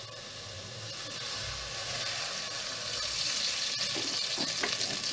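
Chopped onions sizzling in hot oil in an aluminium pot, the sizzle growing louder a second or two in.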